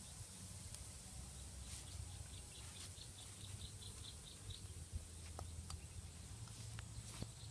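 Quiet outdoor ambience over a low rumble; in the middle, a bird gives a quick run of about ten high chirps, about five a second. A few faint clicks come and go.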